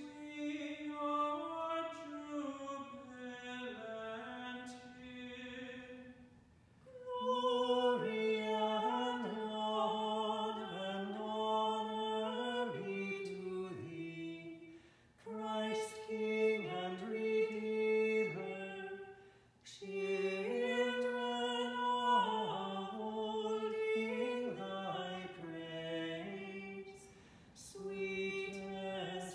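Unaccompanied liturgical singing, sustained stepping notes sung in phrases of several seconds with short breaks between.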